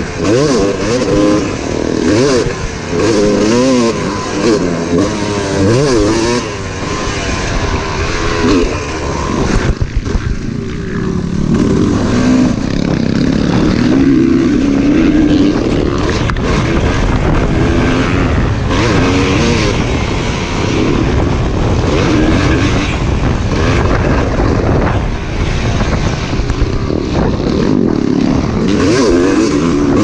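Yamaha motocross bike's engine, heard from the rider's own bike, revving up and down repeatedly as the throttle opens and closes and the gears change, with heavy wind rumble on the camera microphone.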